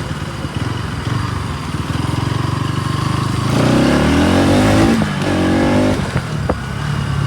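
Bajaj Pulsar NS200's single-cylinder engine running under way, then revving up about halfway through, its pitch climbing and dropping twice as it accelerates through the gears.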